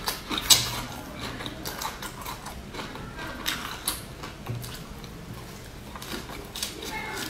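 Close-miked chewing of lettuce-wrapped sausage: a run of crisp crunches and wet mouth clicks, the sharpest about half a second in, with a fresh bite into the lettuce wrap near the end.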